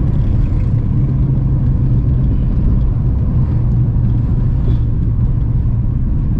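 A car being driven: steady low engine and road noise with no sudden events.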